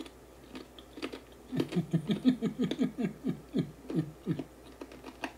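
A woman chewing meat, with small wet mouth clicks. In the middle comes a quick run of short closed-mouth "mm-mm-mm" hums of relish, each dropping in pitch, about five a second.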